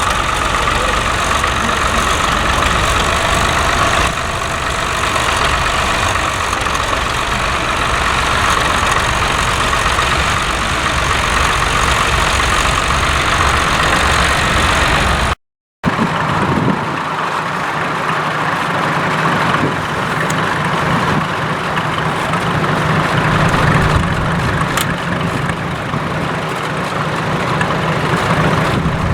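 Tractor engines running, with a dense mix of engine noise in the first half. About halfway through there is a brief dropout, and after it a steadier low engine hum.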